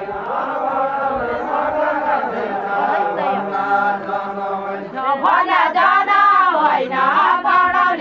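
Group of men and women singing a Far-Western Nepali deuda folk song together, unaccompanied. The singing grows louder and higher about five seconds in.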